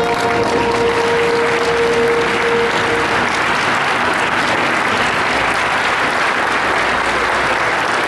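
Audience applauding steadily. The last held note of the accompanying music rings on through the first three seconds and then fades out.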